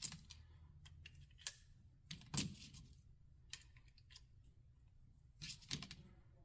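Scattered light metallic clicks and taps of a Smith & Wesson Model 19-2 revolver being loaded with .357 Magnum cartridges, the loudest about two and a half seconds in.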